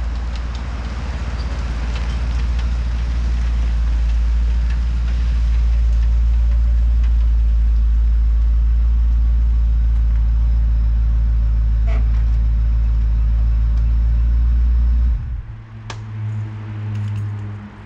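A motor vehicle running: a loud, steady low rumble that stops suddenly about fifteen seconds in, leaving a quieter steady hum and a few clicks.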